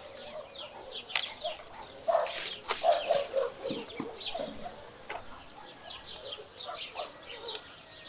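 Small birds chirping over and over, with a few sharp clicks and a short rustle of branches about two seconds in.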